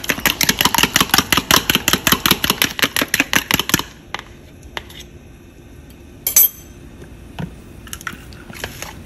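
A fork beating egg and mustard in a plastic bowl: rapid, even clicking strokes, about seven a second, that stop about four seconds in. A few faint knocks follow, with one short clatter a little after six seconds.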